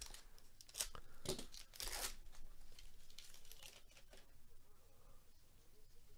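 A trading-card pack wrapper torn open by gloved hands: a few quick ripping strokes in the first two seconds, then faint rustling as the cards are taken out and handled.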